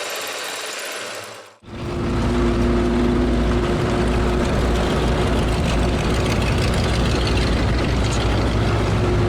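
Ford flathead V8 engines of WW2 Universal Carriers running steadily with a deep rumble and a steady drone. It cuts in suddenly about a second and a half in, after a brief different, thinner sound.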